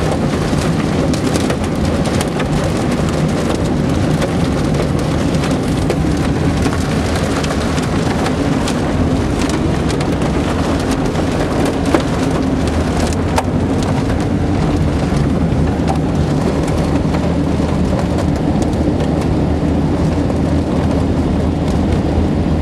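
Heavy rain mixed with small hail pelting a car's roof and windshield, heard from inside the cabin as a steady hiss full of sharp ticks over a low road and engine rumble.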